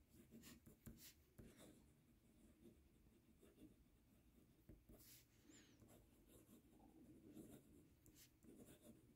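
Fountain pen nib scratching faintly across Rhodia paper as cursive words are written, an uneven run of short soft strokes.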